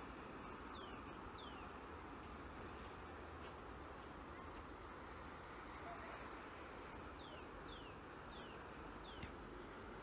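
Faint outdoor ambience with small birds calling: short, falling chirps, a couple about a second in and a quicker run of four or five near the end, over a steady low hiss.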